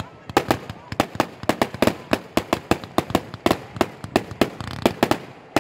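Aerial fireworks going off in a rapid, irregular barrage of sharp bangs, several a second, as shells burst overhead.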